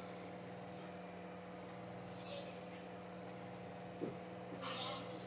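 Steady electrical hum, with faint handling noises as artificial flower stems are worked into a vase, including a sharp click about four seconds in.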